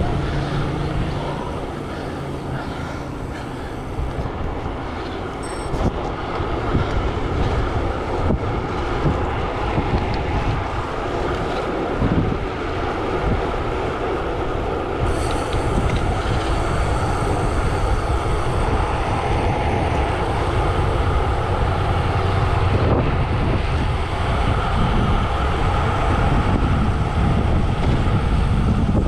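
Wind rushing over the microphone of a camera on a road bike descending at speed, mixed with the steady roll of the tyres on tarmac. It grows louder as the bike speeds up.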